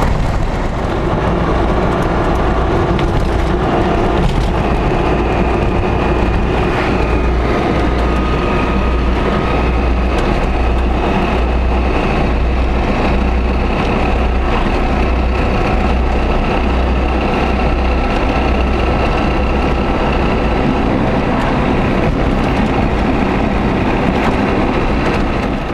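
A car in motion: steady engine and road noise, a low rumble with a faint steady whine above it.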